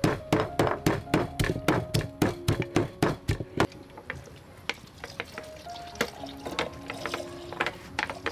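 Wooden pestle pounding chilies and garlic in a wooden mortar, even strikes about four a second, stopping a little under four seconds in. Softer scattered taps follow.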